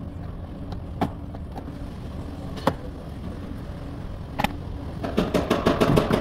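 Plastic interior door trim panel of a Toyota Highlander being pulled off by hand: a few separate sharp clicks, then a quick run of clicks and plastic rattling near the end as the retaining clips let go.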